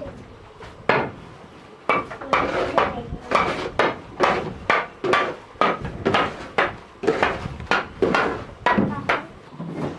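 Repeated hammer strikes, about one or two a second and unevenly spaced, each with a short ringing note.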